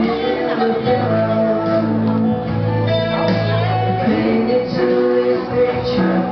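A man and a woman singing a duet into microphones over instrumental accompaniment, with long held sung notes.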